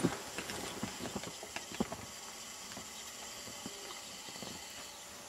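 Footsteps in deep snow: rubber boots stepping and sinking in, heard as irregular soft crunches and knocks. The steps are sharpest at the start and grow fainter and sparser after about two seconds, over a steady faint hiss.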